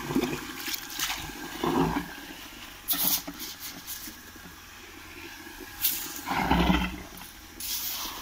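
A shovel scraping and scooping in wet sandy soil: a handful of separate scrapes and scoops, the loudest a little after the middle.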